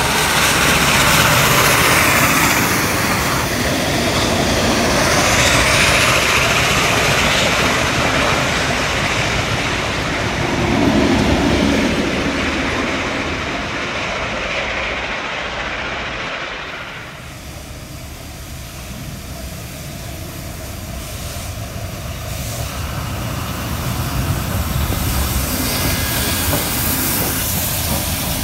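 A train running past on the rails: loud, continuous rumble and rail noise that eases off about seventeen seconds in, then builds again near the end.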